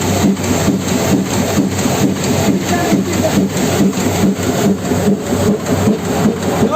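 Heidelberg Speedmaster CD 74 offset printing press running, with a rapid, even rhythmic knocking that repeats several times a second: the bad noise from the plate and blanket cylinders.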